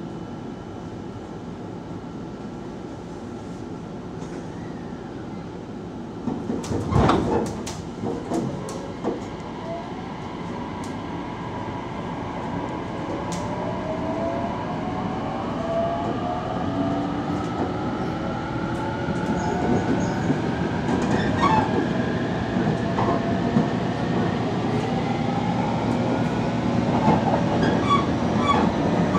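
Hitachi IGBT VVVF inverter and traction motors of an 815 series electric train pulling away. A cluster of clunks about seven seconds in, then a whine of several tones rising steadily in pitch and growing louder as the train accelerates. Wheel clicks over the rails come near the end.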